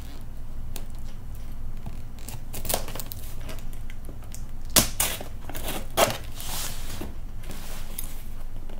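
A sword-shaped letter opener slicing through packing tape on a cardboard box: uneven scraping and tearing, with two sharp clicks about five and six seconds in.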